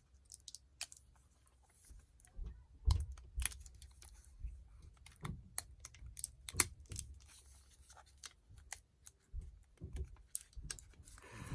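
Irregular small clicks, taps and light knocks of a laptop hard drive being handled and fitted into the drive bay of a Lenovo ThinkPad T460.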